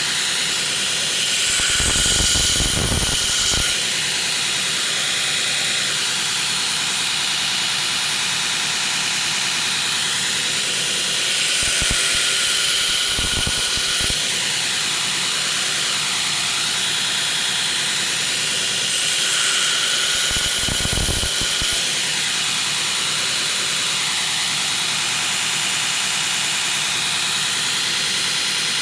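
Belt grinder running with a coarse 36 grit belt, with a steady hiss. Three times, for a couple of seconds each, a steel knife blade is pressed to the belt to grind the bevel, and the sound gets louder and rougher while it is on the belt.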